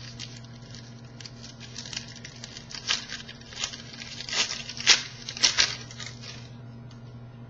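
Foil trading-card pack being torn open and handled, an irregular crinkling and tearing that is loudest a little past the middle, over a steady low electrical hum.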